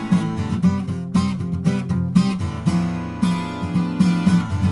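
Twelve-string acoustic guitar strummed in a steady chord rhythm.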